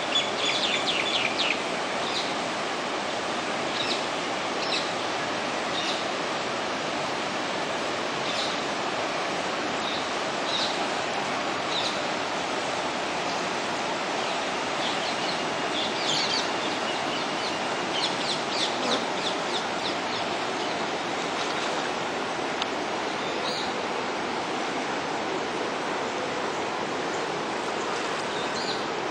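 Steady rush of the flooded Kaveri River's brown water flowing past the riverbank, with birds calling over it in short high chirps: a quick run at the start, single calls every second or two, and another cluster about halfway through.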